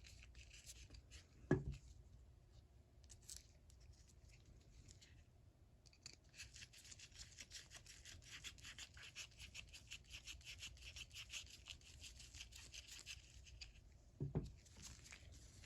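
Faint, fast scratchy ticking of small screws being driven back into a vintage ratchet's head plate with a screwdriver, with a soft knock about a second and a half in and another near the end.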